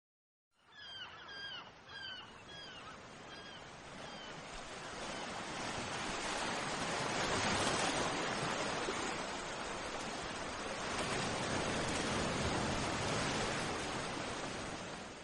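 Recorded sea surf: a steady wash of waves that swells and then fades away, with a bird giving a series of short, falling cries during the first few seconds.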